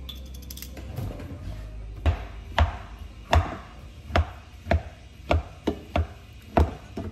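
Hot boiled potatoes being mashed in a pot with a hand masher: about ten dull thuds, roughly two a second, starting about two seconds in.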